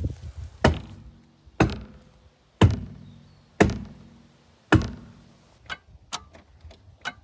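Hatchet chopping with five heavy strikes about a second apart, each ringing briefly, then a few lighter clicks near the end.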